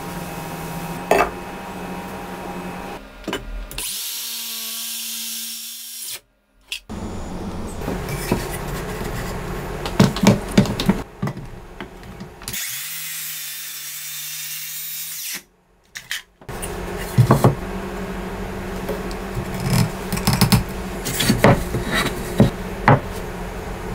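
Makita HS631DZSB cordless circular saw running and cutting into wood in two short runs, about 4 and 13 seconds in, each a steady hiss over a motor hum. Between and after the runs, wooden knocks and clatter from the boards and clamps being handled.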